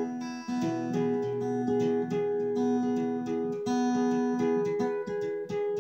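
Acoustic guitar played by hand, a steady run of single picked notes that ring on over one another.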